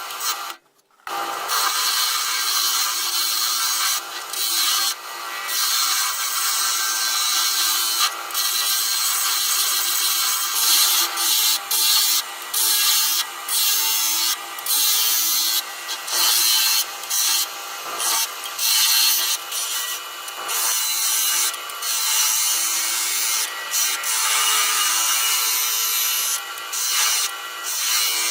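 Wood lathe running while a hand turning tool cuts a spinning block of wood into a pipe bowl: a steady scraping hiss over a faint hum, broken by many short pauses.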